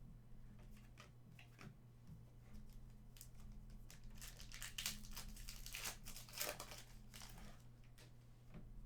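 Trading card pack wrappers crinkling and tearing as packs are opened, in scattered rustles that grow into a busier stretch of crinkling in the middle, over a faint steady low hum.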